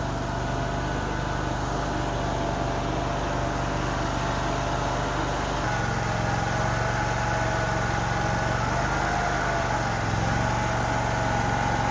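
Mini skid steer engine running steadily. About halfway through the note gets fuller and a higher whine joins in as the machine works.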